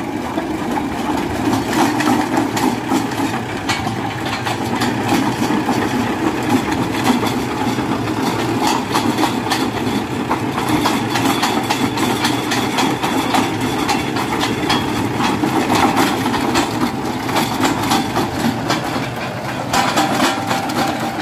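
Tractor diesel engine running and driving a rear-mounted PTO auger post hole digger as it bores into dry soil. The engine noise is steady, with frequent rattling clicks and knocks throughout.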